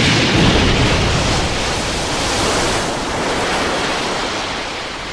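Anime explosion sound effect: a long rushing, rumbling blast that slowly dies away.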